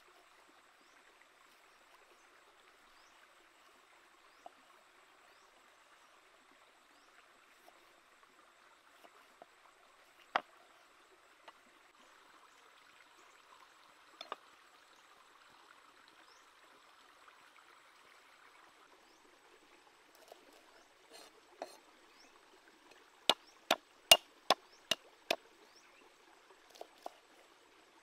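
Cleaver chopping on a wooden chopping block: a few scattered knocks, then a quick run of about seven sharp chops near the end, cutting yardlong beans. A faint steady rush like running water lies underneath.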